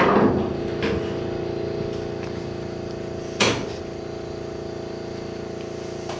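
A steady mechanical hum with a few sharp knocks: the loudest right at the start, a lighter one about a second in, another about three and a half seconds in.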